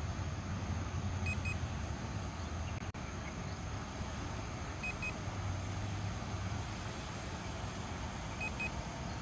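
Drone remote controller beeping: short double beeps repeating about every three and a half seconds, over a steady low rumble.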